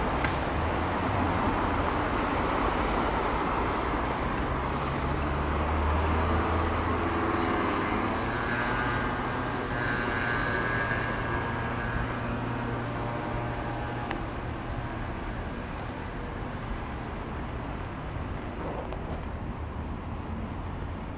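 Road traffic on a city street: motor vehicles running past with a steady low engine hum that slowly fades.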